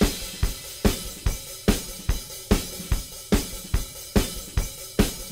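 Background music carried by a drum kit: a steady beat, a strong hit a little under once a second with lighter strokes between.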